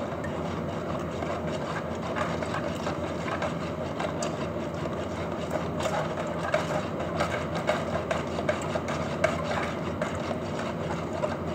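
Wire balloon whisk beating a liquid cake mixture by hand in a bowl: a quick, steady run of scraping and clicking strokes as the wires hit the bowl.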